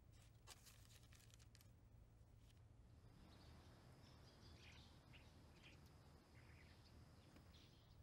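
Near silence, with faint bird chirps scattered through the second half.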